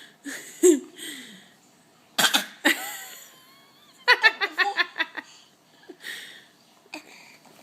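An 11-month-old baby's deliberate fake coughs, short separate bursts with pauses between, mixed with laughter in a quick run of pulses about four seconds in.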